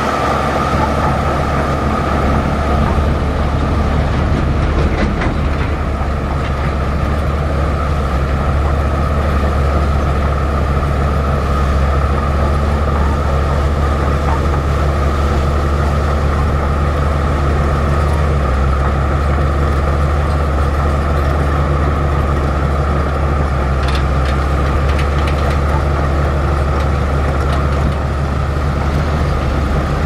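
Diesel engine of a heavy earthmoving machine running steadily, with a low drone and a steady whine above it.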